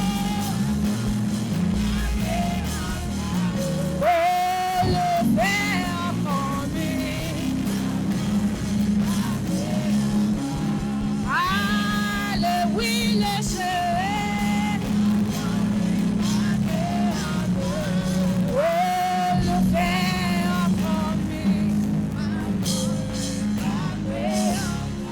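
Live worship music: a band plays a slow song while a singer's voice glides through long, held notes over it.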